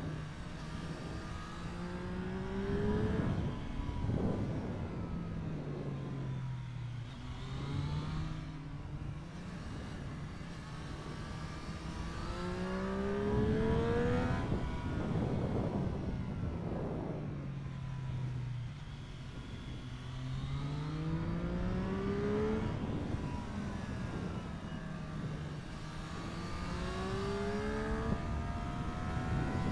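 Triumph Street Triple 765 RS inline-three engine under hard acceleration, its revs climbing steeply, then winding slowly down off the throttle, about four times over.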